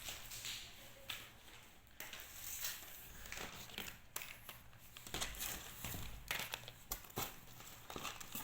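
Plastic snack packaging crinkling and rustling as it is handled, with irregular small crackles throughout.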